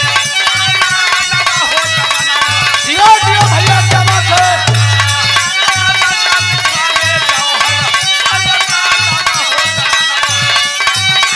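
Instrumental interlude of a Bhojpuri biraha folk song: a steady drum beat under melodic instrument lines, with a short gliding melodic phrase about three seconds in.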